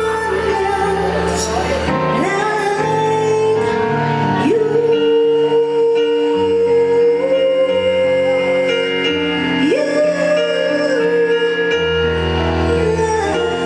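A female singer holding long notes that scoop upward into each new phrase, over sustained chords and a bass line.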